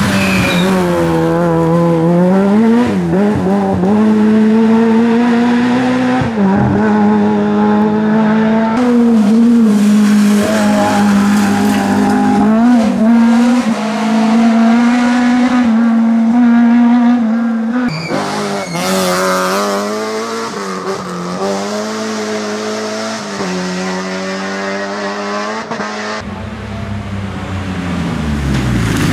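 Rally cars driven hard one after another on a loose dirt stage, engines revving high, with pitch dropping and climbing again through gear changes and lifts.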